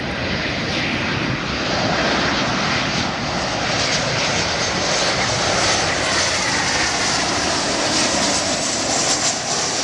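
Boeing 737-800 airliner's twin CFM56 jet engines on final approach, passing low: a steady rush of jet noise that grows louder over the first two seconds, with a whine that slides down in pitch as the plane goes by.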